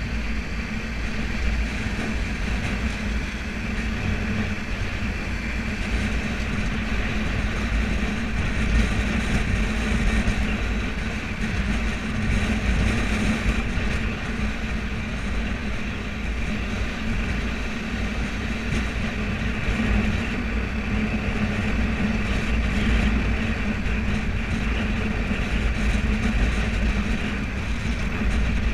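Motorbike riding along a road: a steady engine hum with road noise and a constant low rumble of wind buffeting the microphone.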